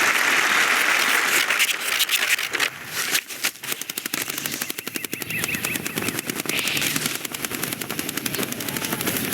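Sound effects from an animated film: a loud hiss at first, then a fast, dense run of sharp clicks and rattles, many a second, with no speech.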